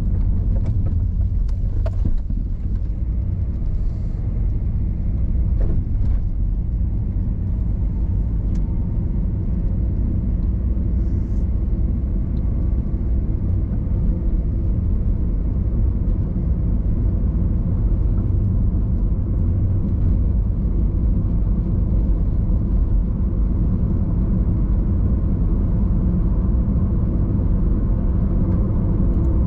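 A car on the move: a steady low rumble of engine and tyre noise on a rough road, with a few short knocks in the first several seconds.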